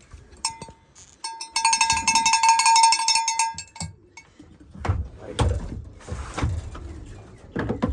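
A bell shaken rapidly for about two seconds after a couple of single strokes, the signal a pigeon keeper rings to call his birds in to land; in the second half come several low dull thumps with rustling.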